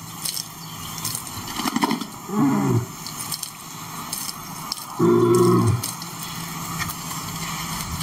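Male lion giving two short, deep calls about two and a half seconds apart, the first falling in pitch and the second held level. Faint clicks sound in between.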